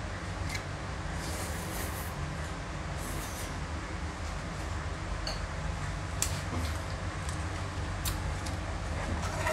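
A steady low rumble with scattered light clicks and clinks of a spoon against a metal pot and bowl, and a short plastic rustle about one and a half seconds in.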